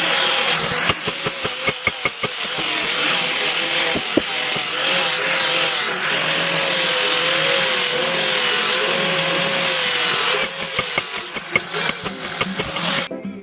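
Electric power tool, such as a grinder or sander, running against the work, its motor pitch wavering with the load. It cuts off suddenly near the end.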